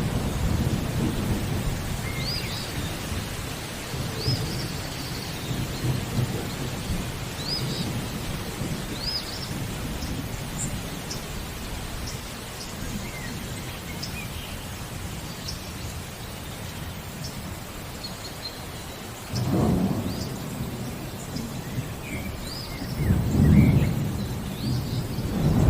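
Steady rain with thunder rumbling. One rumble fades away at the start, another sets in about 19 seconds in, and a louder one swells near the end. A bird gives short, repeated chirps over the rain.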